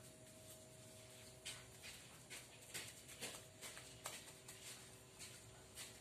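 Faint, irregular brush dabs, about two a second: a paintbrush stippling resin into fiberglass mat laid over a mould.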